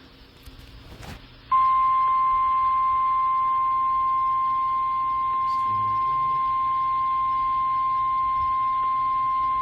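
NOAA Weather Radio warning alarm tone, a steady 1050 Hz tone: it starts about a second and a half in and holds unbroken at one pitch. It is the signal that automatically activates weather alert receivers.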